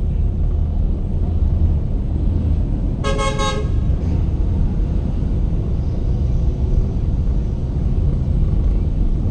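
A vehicle horn toots once, briefly, about three seconds in, over the steady low rumble of road and engine noise inside a moving car.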